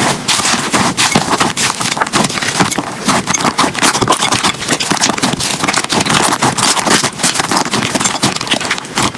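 Slime being squeezed and worked by hand, making a dense, continuous run of small clicks, pops and crackles.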